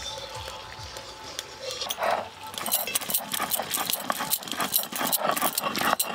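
Stone roller (nora) crushing fried onion, garlic and whole spices on a shil stone slab, starting about two seconds in as quick, repeated knocking and rubbing strokes.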